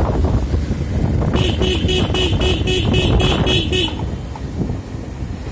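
Road and wind rumble from a moving vehicle, with a horn beeping in quick short pulses, about four a second, for a couple of seconds starting about a second in.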